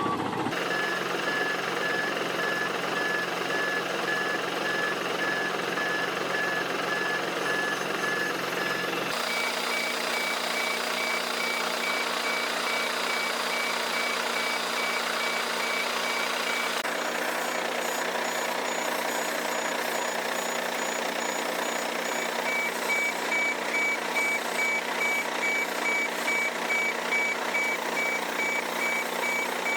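Warning beeper on a heavy vehicle or machine beeping repeatedly at one fixed pitch over its running engine. The beep's pitch changes abruptly twice, at cuts between machines.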